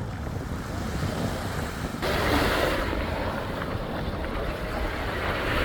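Wind buffeting the microphone over waves washing on the shore, the surf growing louder about two seconds in.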